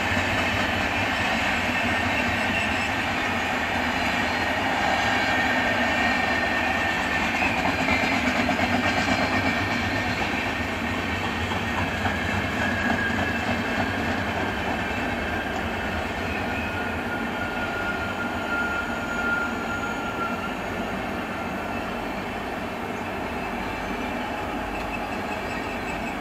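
Passenger coaches of the Poorva Express rolling past at speed: a steady rumble of steel wheels on rail, with a few thin, high wheel squeals drawn across it, the whole sound slowly growing fainter towards the end.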